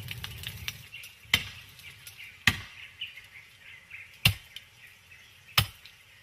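Four separate chopping blows of a blade into wood, each a sharp knock, about a second and a half apart, as a tree is being cut down.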